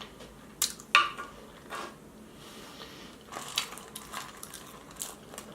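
Close-up mouth sounds of someone eating: a series of short wet clicks and smacks of chewing, spread unevenly through the stretch.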